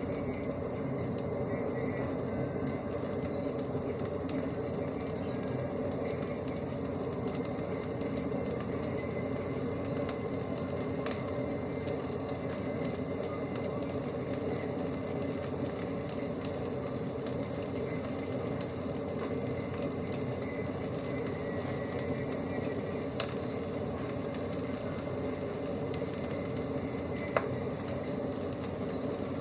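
Mince frying in a wok over a gas flame: a steady, even sizzle with a few faint pops, one sharper click near the end.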